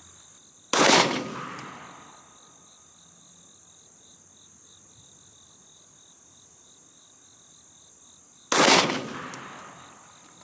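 Two single shots from a Ruger SR9C 9mm pistol, about eight seconds apart. Each is loud and sharp, with about a second of echo fading after it.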